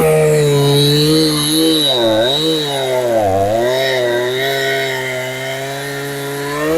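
Two-stroke chainsaw running at high revs while cutting a log, its pitch dipping briefly twice.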